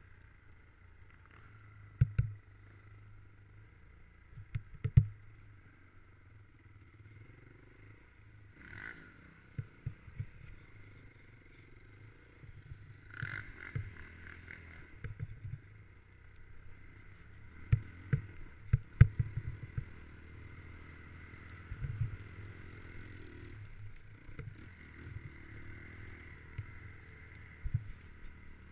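Snowmobile riding along a snowy trail: a steady engine drone, broken by irregular sharp knocks and clatters as the sled jolts over bumps. The loudest knocks come about two, five and nineteen seconds in.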